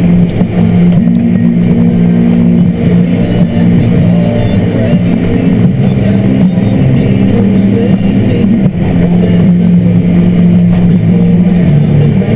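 Tractor's diesel engine running steadily under load, pulling dirt scraper pans, heard from inside the cab; its pitch drops slightly near the end.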